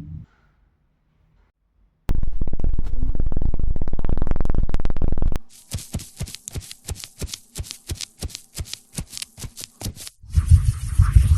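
Woodworking noises in short cuts: a tool runs loudly for about three seconds, then quick rhythmic scraping strokes, several a second, for about four seconds, then another loud burst of noise near the end.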